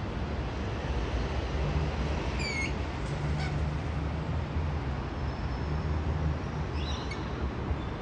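Lorikeets giving a few short, high chirps, a couple about two and a half to three and a half seconds in and a quick cluster near the end, over a steady low background hum.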